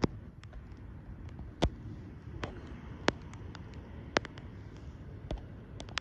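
Mute swans feeding at the water's surface, their bills making about ten sharp, irregular clicks, some much louder than others, over a low steady rumble.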